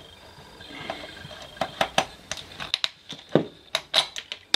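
Sheet-metal cover plate being handled and lifted off a metal equipment case: a string of light, sharp metallic clicks and knocks, growing more frequent after the first second or so.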